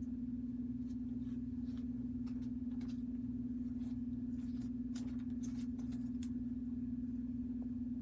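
A steady low hum, with faint scattered rustles and clicks of trading cards and packs being handled, mostly in the middle of the stretch.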